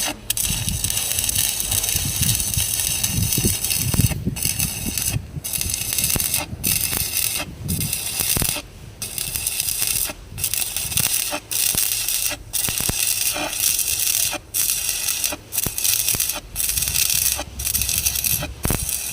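Stick-welding arc crackling and hissing, broken by short gaps about once a second as the arc stops and restarts.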